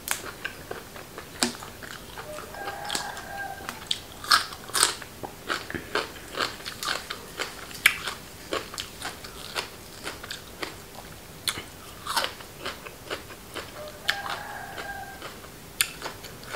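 Close-up crunching and chewing of a mouthful of raw bitter melon and raw beef, with many crisp crunches. A rooster crows faintly twice, about 3 seconds in and again near the end.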